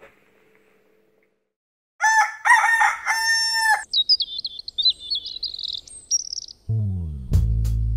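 About two seconds in, a rooster crows once, loudly, for nearly two seconds; a small bird then sings a high warbling phrase, and music with a heavy bass line comes in near the end.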